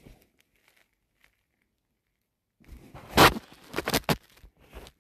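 Rustling and crackling close to a phone's microphone as the phone is handled and shifted against fabric and bedding. It starts about halfway through, with one loud scrape and a few sharper crackles after it.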